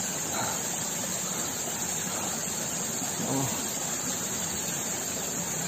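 Steady rush of water from a small waterfall splashing down a rock face, with a faint voice briefly heard twice.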